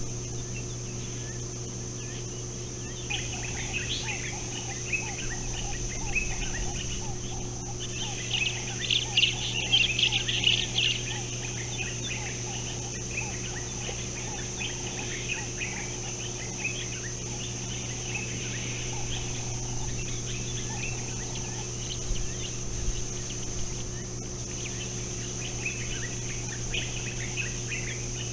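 A flock of helmeted guineafowl calling, a chatter of many short rapid notes that swells loudest about eight to eleven seconds in and picks up again near the end. A steady low hum and a high-pitched whine run underneath.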